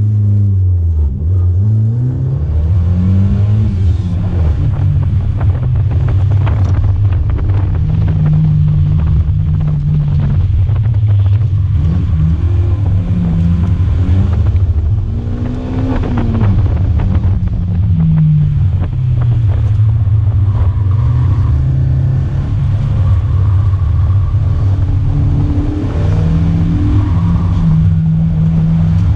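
Silvertop 4A-GE 20-valve inline-four on individual throttle bodies in a mid-engined Toyota MR2, heard from inside the cabin. The engine is driven hard, rising in revs and easing off again and again through the run, with a few longer stretches held at steady revs.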